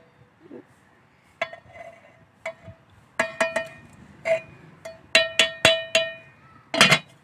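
Steel ladle clinking and ringing against the rim and sides of an aluminium cooking pot while stirring vermicelli in milk: a scattered series of sharp metallic taps, some in quick runs, the loudest near the end.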